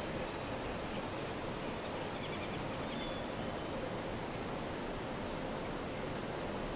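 Steady outdoor background hiss with faint, short, high-pitched chirps of small birds several times over.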